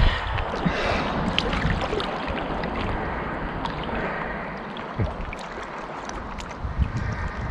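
Lake water sloshing and splashing close to the microphone around a swimmer, with many small drips and clicks. Low rumbling comes in at the start and again near the end.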